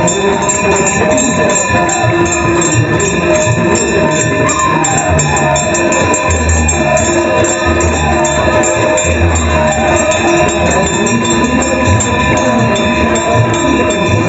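Hindu devotional music: fast jingling percussion and drum beats under steady ringing tones and a wavering melody, all at a constant level.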